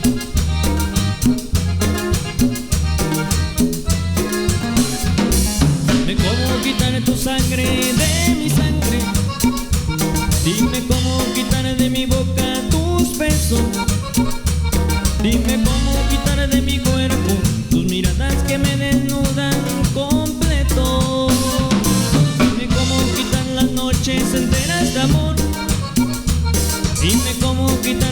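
Latin band music, cumbia-style: an instrumental passage with a steady drum-kit beat and bass line, without singing.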